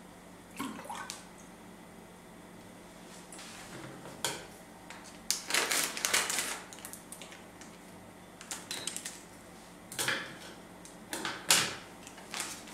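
Intermittent clinks and clatter of kitchen items being handled, with a longer run of clattering about five to seven seconds in, over a steady low hum.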